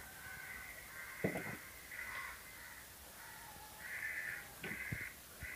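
Birds calling in the background, a string of short calls each about half a second long. A spoon knocks on the aluminium pressure cooker about a second in, and there are a few lighter clicks near the end.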